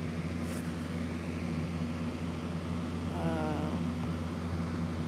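Steady low mechanical hum of a few fixed tones, with one short pitched sound lasting about half a second, a little after three seconds in.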